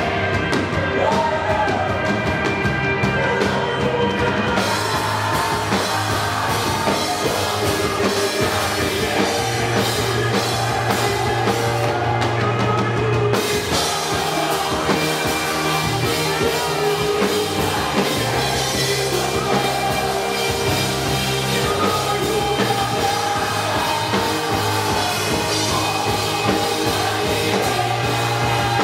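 Worship song: singing over a band with drum kit, the cymbals filling out about four seconds in.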